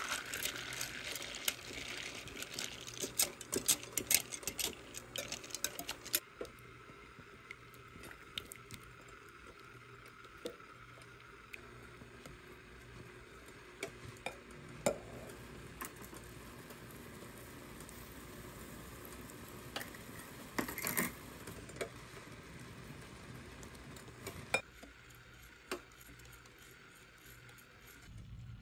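Wire balloon whisk stirring chocolate chips into heavy cream in a glass bowl as they melt into ganache, its wires clicking and scraping against the glass. The clicking is busiest for the first six seconds, then settles to a soft swishing with occasional taps.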